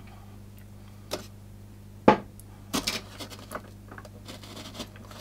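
Small clicks and taps of metal rail joiners being pushed onto model railway track rails by hand, the sharpest click about two seconds in, over a low steady hum.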